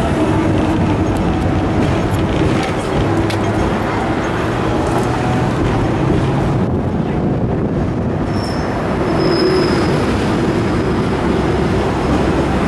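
Hong Kong double-decker tram running along its street track: a steady rumble of wheels on rails and rattling bodywork, with a few short clicks. A faint high squeal joins in about eight seconds in.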